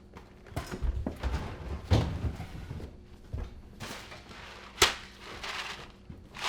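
Thumps, knocks and rustling of things being handled and set down, with one sharp knock about five seconds in.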